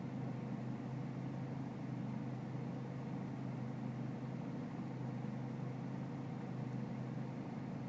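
BMW E46 320Cd's four-cylinder common-rail diesel idling steadily with a rough idle.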